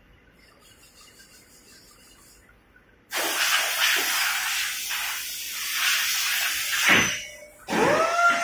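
A loud hissing rush of air that starts suddenly about three seconds in and swells and dips for several seconds. Near the end it breaks off, and a tone glides up and settles into a steady held note.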